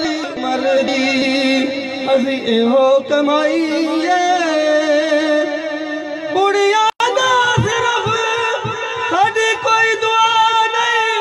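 A man singing a Punjabi folk verse into a microphone, amplified through loudspeakers, in long held notes that waver and slide in pitch. The sound drops out for an instant about seven seconds in.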